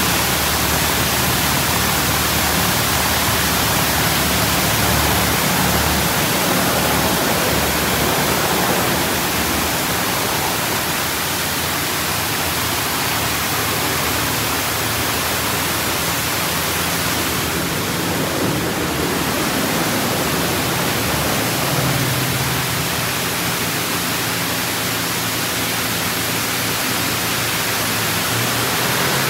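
D&S IQ Express ST automatic car wash at work: a steady, loud rush of spraying water or blowing dryer air, with a low hum under it and a short burst of brighter hiss about two-thirds of the way through.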